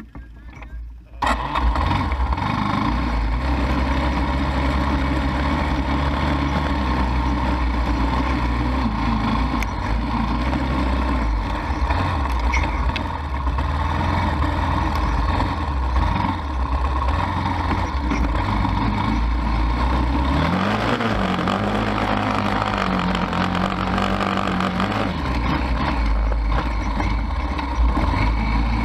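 ATV engine running while riding, coming in abruptly about a second in and then holding a steady drone. About two-thirds of the way through, the engine pitch rises and falls as it speeds up and eases off, and again near the end.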